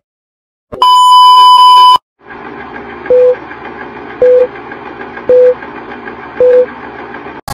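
Film-countdown leader sound effect: one loud, steady high beep lasting about a second, then the whir of a film projector with a short, lower beep on each count, four beeps about a second apart.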